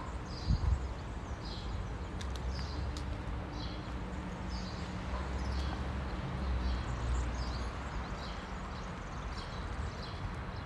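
Walking footsteps on stone paving, a short scuff about one and a half times a second, over a steady low hum of city traffic.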